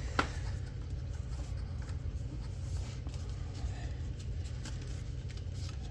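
Light handling of the knife's box and paper packaging: soft rustling and small ticks, with one sharp click just after the start. A steady low hum runs underneath.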